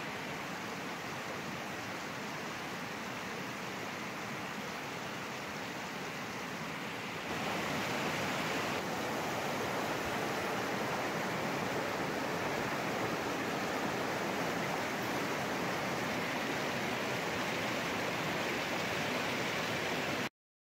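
Fast-flowing river rushing over rocks in whitewater rapids: a steady rushing that gets louder about seven seconds in and cuts off suddenly just before the end.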